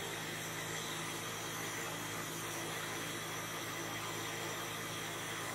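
Large pot of vegetable soup cooking over the heat, giving off a steady hiss with a low steady hum underneath as the leaves release their water.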